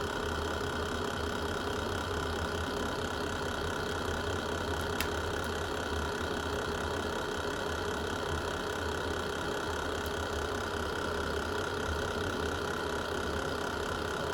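Fireplace fire burning with a steady low rumble, broken by a faint sharp pop about five seconds in and another about ten seconds in.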